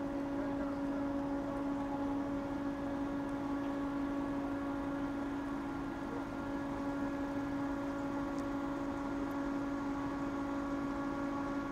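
Steady mechanical hum of machinery: one strong low drone with several fainter, higher steady tones above it and a light hiss underneath, unchanging throughout.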